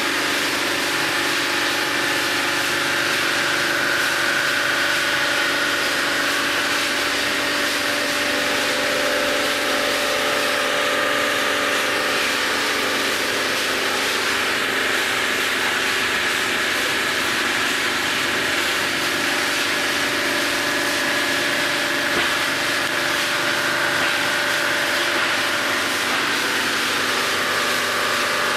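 Cylinder-head resurfacing machine running a steady pass across a Volvo 240 aluminium cylinder head: an even motor whine over a constant hiss of cutting and coolant spray, as the welded, corrosion-damaged deck is machined flat.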